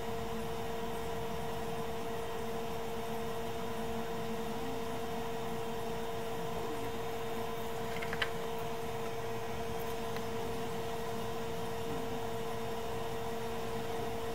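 Steady electric whir of a small fan motor on a repair bench, a constant hum with a pitched whine, and a single sharp click about eight seconds in.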